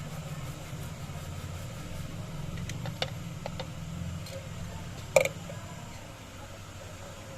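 A steady low mechanical hum, with a few light clicks around three seconds in and one sharper, louder click a little after five seconds.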